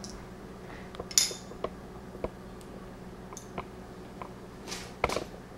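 Small sharp clicks and clinks of a screwdriver and screws against a laptop's plastic screen bezel as the last bezel screw is driven home and the tools are handled, with a couple of brief scraping rustles, one about a second in and one near the end.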